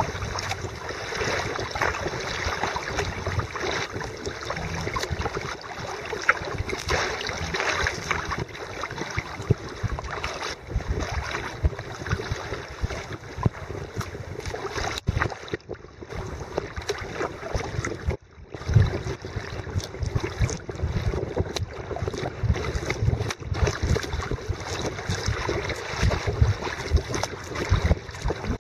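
Water rushing and splashing around a kayak on a fast, flooded river, with wind buffeting the microphone.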